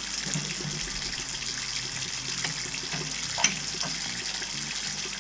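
Bathroom faucet running a steady stream of water into a wall-hung lavatory basin and down its open drain, with a brief sharp click about three and a half seconds in.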